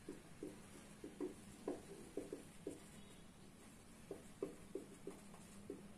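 Felt-tip marker writing on paper: faint, short squeaky strokes, one after another, in two runs with a pause of about a second and a half between them.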